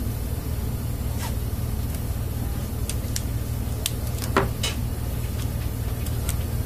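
Scattered light clicks and taps of hand work on a speaker frame and its parts, with one louder knock about four and a half seconds in, over a steady low hum.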